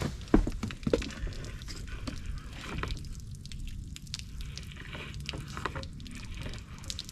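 Handling knocks and clicks as a boat's pull-out transom shower head and its hose are drawn from the deck fitting, the two loudest about half a second and a second in, then smaller scattered clicks over a low steady rumble.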